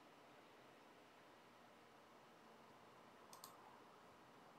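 Near silence with faint room hiss, broken once by a computer mouse double-click, two quick clicks, about three and a half seconds in.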